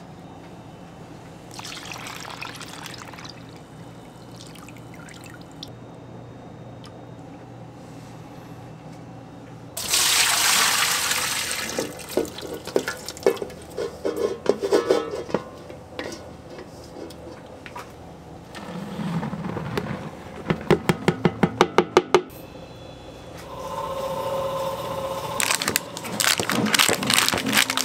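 Milk poured into a stainless steel mixer bowl, starting loudly about a third of the way in and splashing, with irregular knocks after it. Near the end, the paper-and-foil wrapper of a butter block rustles as it is torn open.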